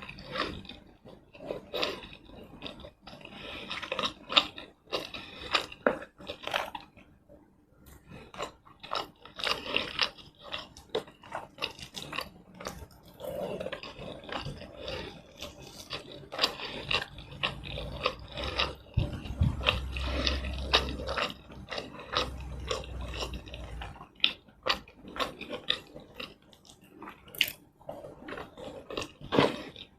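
Close-miked eating: tomato rice and chicken in red chilli sauce being bitten and chewed, as an irregular run of mouth clicks and crackles. A low rumble joins in about twenty seconds in.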